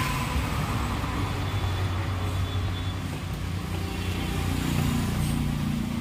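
A motor vehicle's engine running nearby, a steady low rumble whose pitch shifts about two thirds of the way through.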